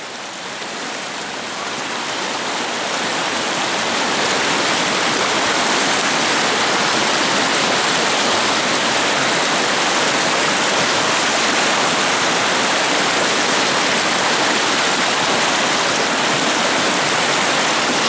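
Rushing whitewater of a raging mountain river, a dense, steady hiss that grows louder over the first few seconds and then holds steady.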